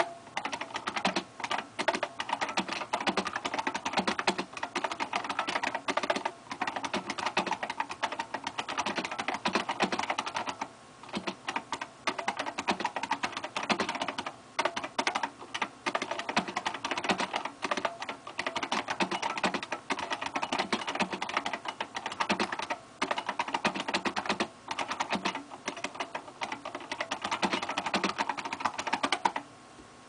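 IBM Model M buckling-spring keyboard (part 59G7980, made by Lexmark in 1993) being typed on quickly: a dense run of sharp clicks, one for each keystroke. There are short pauses about eleven and fifteen seconds in, and the typing stops just before the end.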